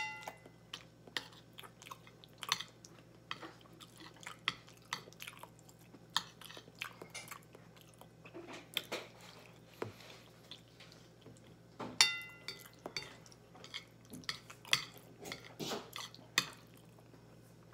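Close-up chewing and mouth sounds of a man eating baked macaroni, with a fork clinking and scraping on the plate. Two louder ringing clinks of the fork on the plate, one at the start and one about twelve seconds in.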